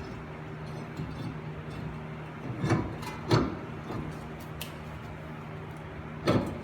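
Three short clunks of metal parts and tools being handled during brake and hub work, two close together a little under halfway through and one more near the end, over a steady low hum.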